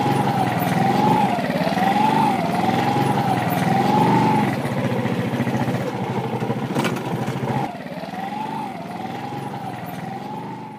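Small motorcycle engine running as it pulls away down a bumpy dirt lane, with a wavering tone that rises and falls about once a second. It gets quieter about two-thirds of the way through as the bike moves off.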